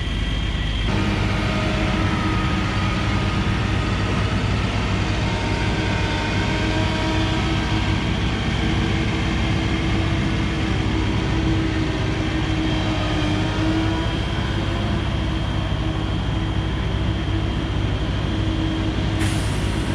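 Komatsu 170 excavator's diesel engine running steadily under throttle as the machine is driven off a lowboy trailer, picking up about a second in.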